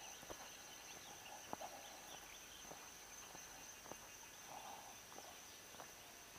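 Faint outdoor ambience: a steady high-pitched insect drone, with scattered faint chirps and a few light clicks.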